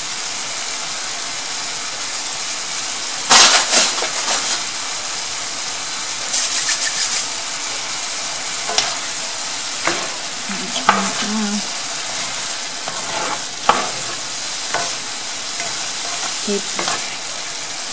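Stir-fry of chicken and vegetables sizzling in sauce in a cast-iron skillet, a steady hiss. A louder clatter comes about three seconds in, then several sharp utensil clicks against the pan, with stirring near the end.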